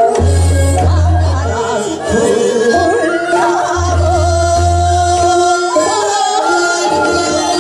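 Women singing Seodo sori, the Korean folk singing of the northwestern provinces, through a microphone: long held notes with a wavering pitch. Under the voices runs an accompaniment with a deep bass that comes and goes every second or two.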